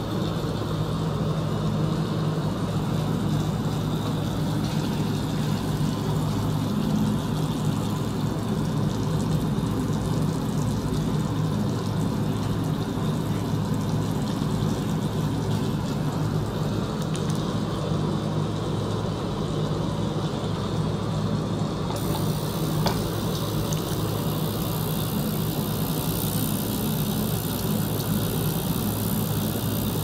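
A small pump circulating water through plastic tubing into a benchtop ultrasonic cleaner: a steady electric hum with running water. A brighter hiss comes in about two-thirds of the way through.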